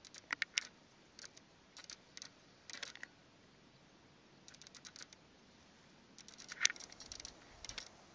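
Crunching in snow: short irregular clusters of rapid crackling clicks, the sharpest about six and a half seconds in.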